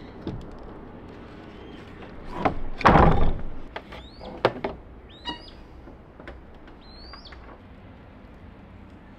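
A few sharp knocks and a heavy thud about three seconds in, followed by several short rising chirps from a bird.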